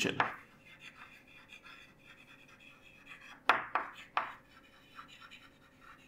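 Chalk writing on a chalkboard: faint scratching, with three short, sharper chalk strokes a little past halfway.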